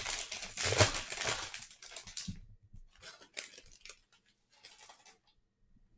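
Foil wrapper of a 2021 Bowman Draft baseball card pack being torn open and crinkled for about two seconds, followed by a few softer rustles of the cards and wrapper being handled, which stop about five seconds in.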